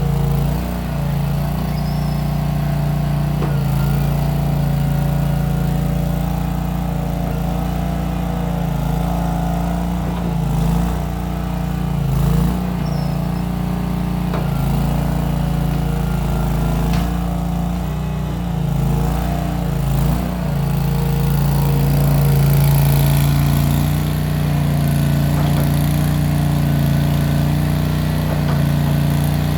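Case 1816 skid steer's engine running steadily through short mufflers. Its pitch drops and recovers briefly a few times as the machine works.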